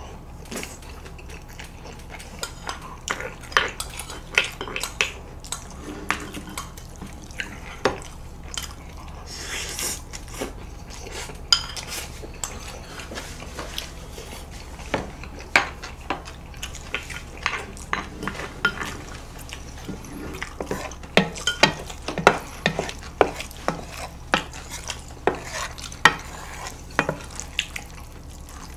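Chopsticks and spoons clicking and scraping against ceramic bowls and plates as people eat, in scattered sharp clicks that come thicker and louder in the second half. Near the end, a big bowl of noodles is stirred.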